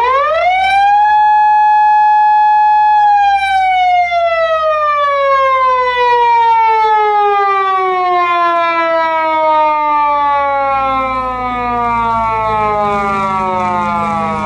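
Japanese police car siren sounding one long wail: it rises quickly to a held tone for about three seconds, then slowly falls in pitch over the next ten seconds.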